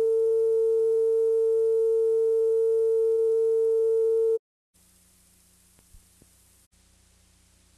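A steady electronic test tone, mid-pitched with faint overtones, held for about four and a half seconds and then cut off abruptly. Faint hiss and a low hum follow.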